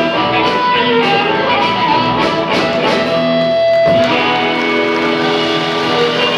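Live rock band playing an instrumental passage: electric guitars over drums. A long held note comes in about halfway through and cuts off before the band carries on.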